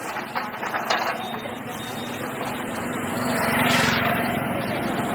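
A small engine running with a steady pulsing drone that grows louder about three seconds in, with a few light knocks in the first second.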